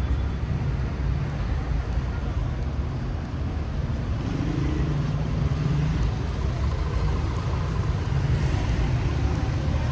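Steady road traffic of a busy city square: passing vehicles' engines and tyres in a continuous low rumble.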